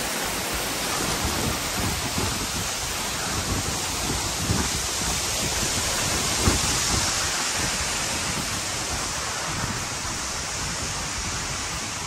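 Steady rushing roar of the Seven Falls waterfall cascading down the rock, with wind rumbling on the microphone underneath and a soft thump a little past the middle.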